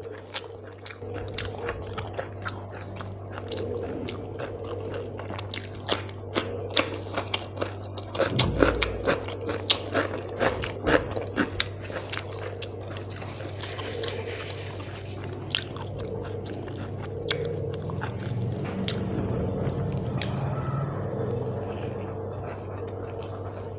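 Close-miked eating sounds: a person chewing mouthfuls of rice mixed by hand with fried small fish, with many short wet clicks and smacks and some crunching, over a steady low hum.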